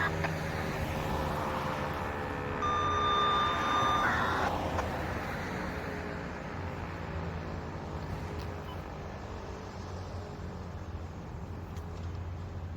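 Federal Signal 508-128 rotating outdoor warning siren winding down at the end of its test, its tones falling in pitch and fading out over the first several seconds. A brief higher steady tone sounds about three seconds in, and a low road-traffic rumble continues underneath.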